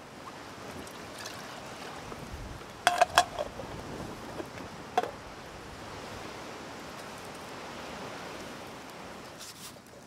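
Steady rush of wind, with a quick cluster of sharp metallic clinks about three seconds in and one more clink at about five seconds.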